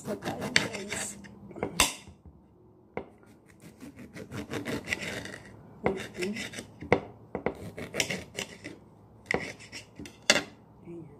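Lemon rind being torn and peeled off by hand close to the microphone: short scratchy tearing and rubbing strokes in several flurries, with brief pauses between them.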